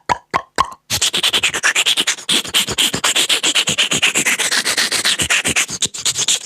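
Comic sound effect: a few evenly spaced pitched knocks, about four a second, then from about a second in a fast, continuous scratchy rubbing rasp made of many quick strokes.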